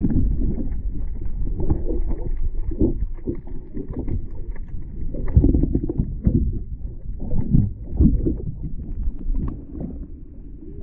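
Muffled sloshing and rushing of water picked up by a camera in the sea, surging irregularly and easing a little near the end.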